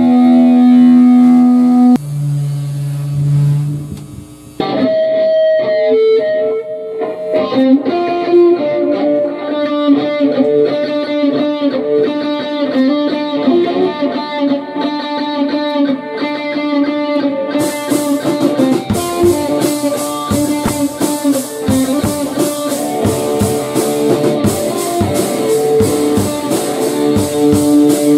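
Instrumental rock music led by electric guitar with effects: held chords at first, then picked melodic lines. Cymbals join about two-thirds of the way through.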